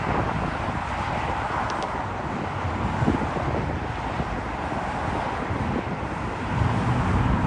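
Wind buffeting the microphone in irregular low gusts over a steady rushing roar.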